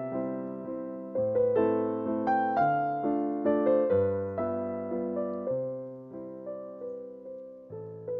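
Background music: a gentle piano melody of struck notes that each fade away, with a slow, steady pulse.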